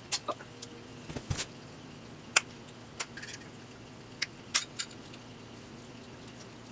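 Scattered sharp clicks and metallic clinks of tools and parts being handled while working the electrical wiring harness out of a GM automatic transmission, about eight separate knocks in the first five seconds.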